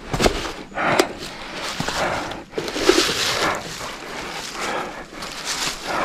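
Dry fallen leaves crunching and rustling in several short bursts as someone moves and handles things on the leaf-covered forest floor, with a sharp click about a second in.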